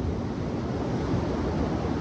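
Waves washing on the shore, with wind rumbling on the microphone.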